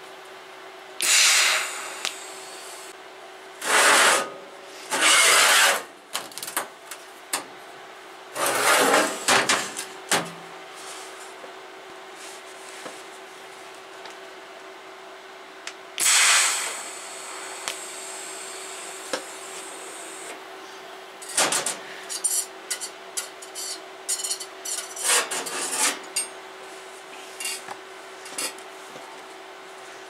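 TIG welding torch arc hissing in short bursts of about a second each while stitch welding the seams of a sheet-metal box, over a steady hum from the welding set. Light clicks and knocks from handling the metal come near the end.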